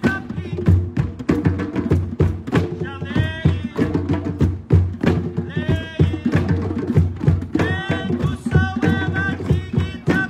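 A group of hand drums playing a steady, dense groove, with a pitched melodic line coming in and out over the drumming in short phrases.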